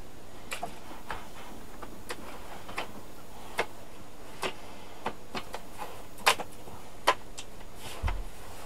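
Plastic bottom cover of an MSI GF63 laptop being pressed back onto the chassis, its clips snapping into place: about a dozen sharp, irregular clicks, with a soft thump near the end.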